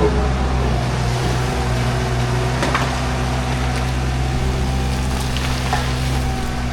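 An engine running steadily at a constant speed, with a few light knocks about three and six seconds in.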